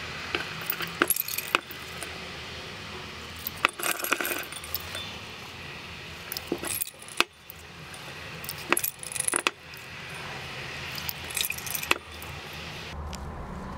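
Light, scattered glass clinks of a glass pipette tapping the rim and ice inside a glass beaker as sodium nitrite solution is added to iced aniline hydrochloride solution for a diazotization.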